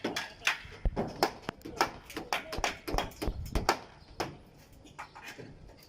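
A rapid, irregular series of sharp knocks and taps from construction work, loudest in the first four seconds and fainter near the end.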